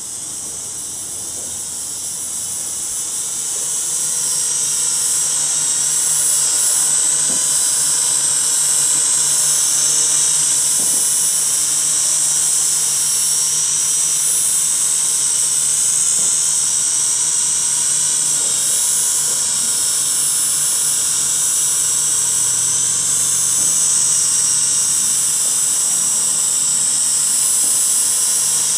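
S169 folding quadcopter drone hovering in altitude hold: a steady high-pitched whine from its four small motors and propellers, growing louder over the first few seconds and then holding level.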